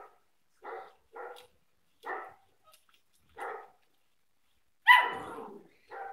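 Samoyed puppy giving short barks, about six of them at irregular gaps, the loudest and longest about five seconds in.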